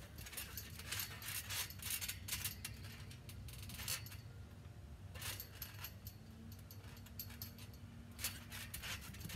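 Trampoline springs and mat clinking and creaking as a person kicks up into a handstand on it and then walks across it: a string of short sharp metallic clinks, most of them in the first couple of seconds and again near the end.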